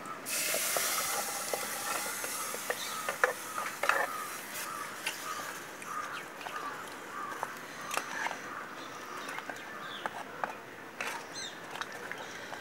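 Chopped lasia stalk pieces in a milky liquid splashing as they are poured into a clay pot of spiced curry, just after the start; then a ladle stirring, with scattered knocks and scrapes against the clay pot. Birds chirp in the background.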